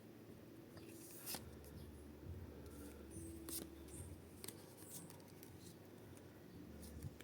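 Faint, scattered rustles and sharp clicks of Pokémon trading-card packs and cards being handled, over a low steady hum.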